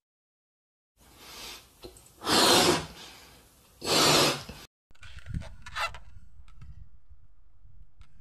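Balloons being blown up by mouth: loud, breathy gulps of air, the biggest about two and four seconds in. These are followed by a fainter stretch with a few small clicks.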